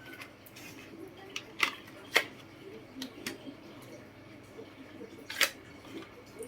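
Scattered sharp clicks and taps from computer parts and small tools being handled while working inside an all-in-one desktop computer. The three loudest come about one and a half, two, and five and a half seconds in.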